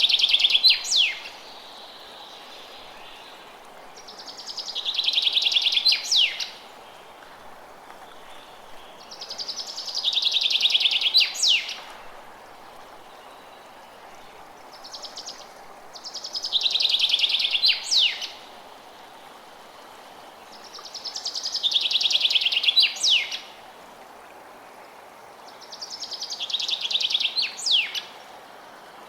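A songbird repeating the same song about every five to six seconds: a rapid trill of about two seconds ending in a few quick downward-sweeping notes. Beneath it runs the steady rush of a gentle stream.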